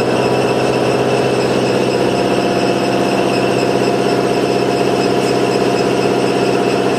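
Putzmeister truck-mounted concrete pump's engine running steadily at constant speed.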